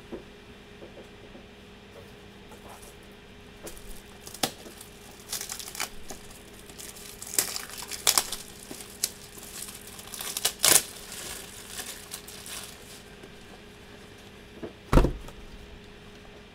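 Plastic and foil trading-card packaging being handled: intermittent crinkling and rustling with scattered small clicks, and a sharper knock about fifteen seconds in.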